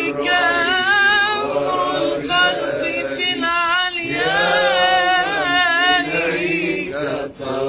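Men's voices singing an Arabic devotional hymn (ibtihal) together without instruments, drawing out long ornamented notes with wavering pitch.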